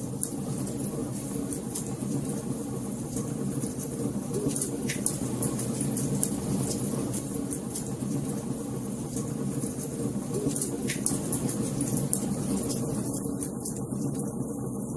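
Fireplace fire crackling: scattered sharp pops and snaps over a steady low rumble.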